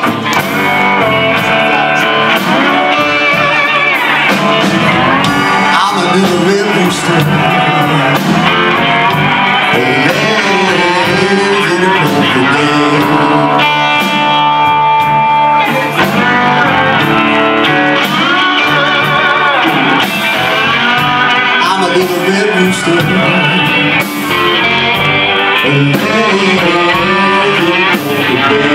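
Live blues band playing: electric guitars, electric bass and drums, with bending, gliding slide-guitar lines and a long held note about halfway through.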